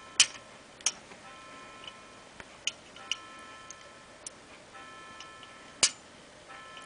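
Turn-key rotary switch on an electrified hurricane oil lamp clicking as it is turned, switching the flicker-flame bulb on and off: a handful of sharp clicks, the loudest near the start and about six seconds in. A faint high hum comes and goes between the clicks.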